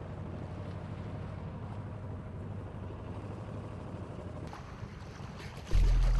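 A small boat's engine running at sea, with wind and water noise. Near the end the sound jumps abruptly to a much louder low rumble.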